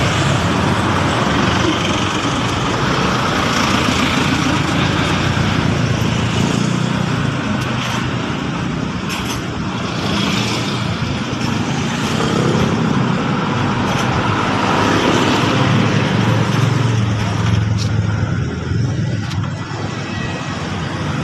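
Small motorcycle engine running steadily, its low hum rising and easing slightly.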